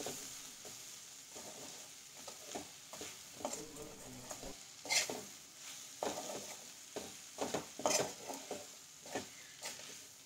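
Spatula stirring and scraping softened sliced onions around a kadhai, in irregular strokes with a few louder scrapes, over a faint steady sizzle of the onions frying in oil.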